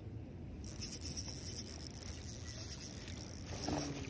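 Spinning reel being wound in, a soft rubbing whir of the rotor and line, over a low rumble; light water splashing comes in near the end as the hooked trout nears the surface.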